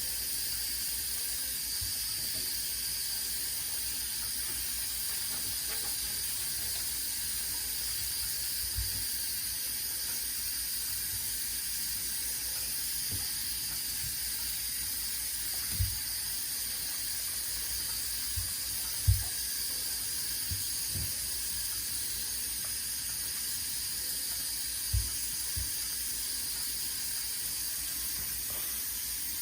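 Steady hiss of running water from a tap or shower spray, with a few soft low thumps scattered through it.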